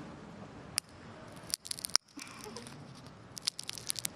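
A small crunchy item crushed between the fingers close against the ear of a binaural dummy-head microphone, giving sharp crackling crunches in short clusters: one about a second in, then a burst around two seconds and another near the end.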